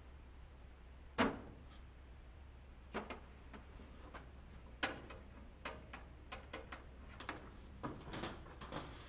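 Metal shed doors rattling and knocking: a string of sharp, irregular clicks and bangs, two of them louder, coming more often toward the end.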